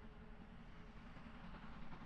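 Steam train running, heard faintly as a steady low rumble with rail noise that strengthens near the end.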